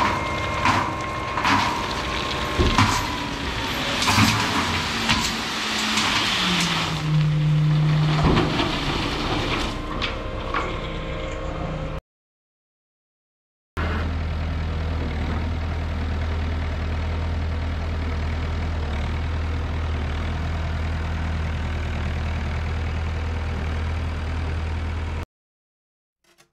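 A dump truck tipping a load of gravel, its engine running while the stones clatter and knock as they slide out; the engine rises in pitch about seven seconds in. After a cut, a 1969 Massey Ferguson loader-backhoe tractor's engine runs with a steady low drone.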